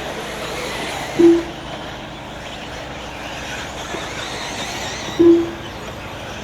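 Electric RC buggies racing, a steady haze of motor and tyre noise. Two short beeps of one pitch, about a second in and about five seconds in, are typical of a race lap-timing system marking cars crossing the timing line.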